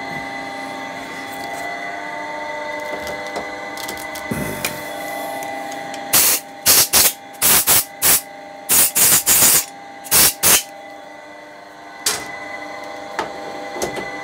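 About a dozen short, loud hissing bursts from a pressurised nozzle come in quick succession between about six and ten and a half seconds in, over a steady low workshop hum.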